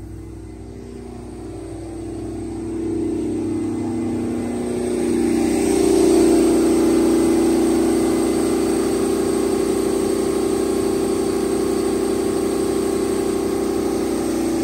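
Detroit Diesel 12V-149 two-stroke V12 diesel of a 1250 kW generator set running steadily. It grows louder a few seconds in as the view moves from the enclosure's louvered grille to the open enclosure door, then holds steady.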